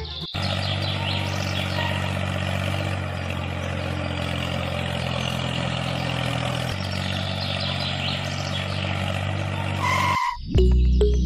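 Tractor engine running steadily: a low, even drone with hiss over it. A short tone sounds just before it cuts off abruptly near the end.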